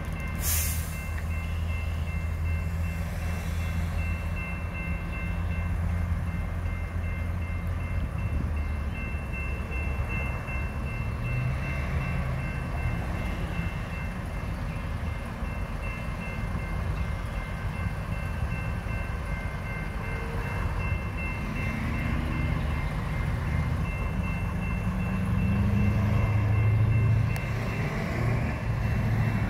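Railroad crossing warning bell ringing continuously over a steady low rumble of idling traffic, with one sharp click about half a second in.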